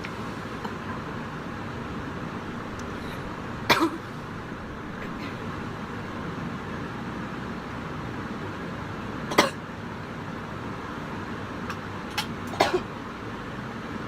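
A young woman coughing from cannabis smoke after a hit. There is a quick double cough about four seconds in, a single cough near the middle, and a short run of coughs near the end, over steady background noise.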